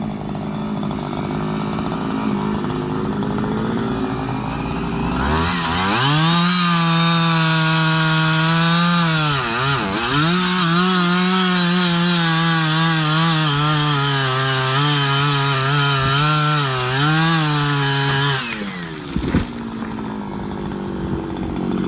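Two-stroke chainsaw idling, then throttled up about five seconds in and held at high revs while cutting into wood, the pitch sagging briefly under load. The throttle is released near the end and it drops back to idle.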